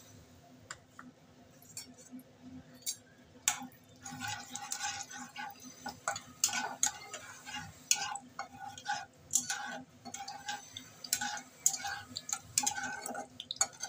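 A spatula scraping and clicking against the inside of a karahi as it stirs whole spices in hot oil. There are irregular scrapes and knocks, sparse at first and busier from about three seconds in.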